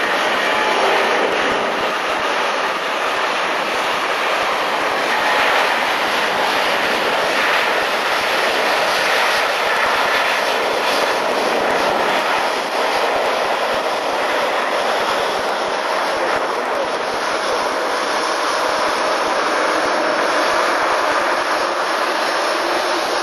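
Boeing 737-800's CFM56-7B jet engines running, a loud steady rushing roar that holds level throughout.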